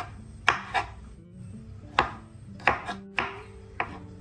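Kitchen knife chopping tomato and green capsicum on a wooden cutting board: about seven sharp, unevenly spaced knocks of the blade meeting the board.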